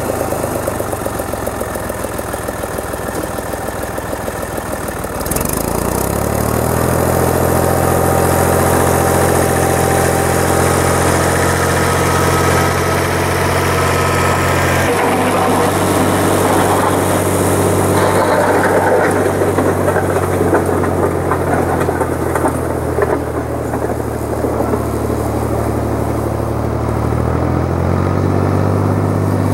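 Engine of a Long 510 farm tractor running steadily as it works a box blade along a gravel driveway. The engine note steps up about five seconds in and shifts again midway and near the end as the tractor moves past.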